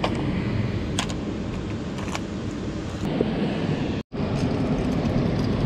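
Steady rush of river water pouring over a weir, with a few sharp clicks from fishing tackle being handled; the sound cuts out for a split second about four seconds in.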